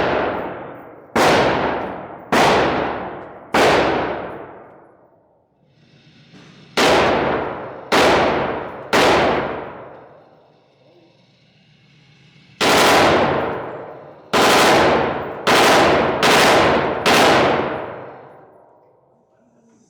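Gunshots from an AR pistol fitted with a forced reset trigger: twelve loud, sharp reports in three groups (four, then three, then five), spaced roughly a second apart. Each report rings out for about a second before the next.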